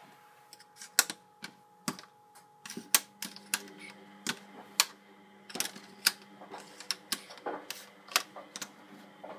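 Plastic magnetic fridge letters being moved about on a fridge door: quick, irregular clicks and taps as the letters are picked off and snapped back onto the metal, some sharp and loud.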